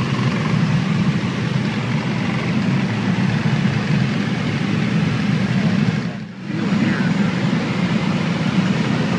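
Steady loud rumble of a single-engine Beech V35's cabin in flight: propeller, engine and airflow noise heard from inside the cockpit. It dips briefly about six seconds in.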